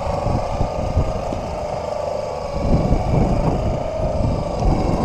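Boat engine running steadily, a slightly wavering hum over an uneven low rumble.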